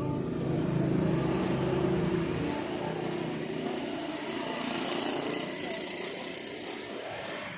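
Small electric water pump motor running steadily, with a hiss that swells about five seconds in.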